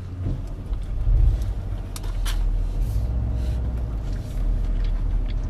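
Low, steady rumble of a car heard from inside its cabin, with a couple of faint clicks about two seconds in.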